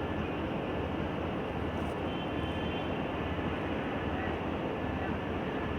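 Wabtec diesel-electric locomotive engine running with a steady, even drone.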